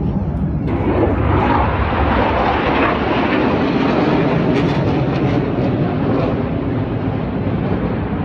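Jet noise from the Black Eagles' KAI T-50B jets flying over: a loud, steady rushing roar that swells about a second in and then holds.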